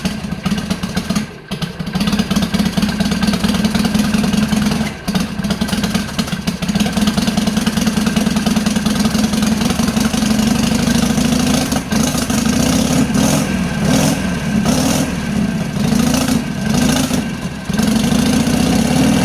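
Harley-Davidson Sportster 883R's V-twin idling with the uneven 'potato' lope through trumpet-style silencers. In the second half it is revved in a series of short blips, the pitch rising and falling.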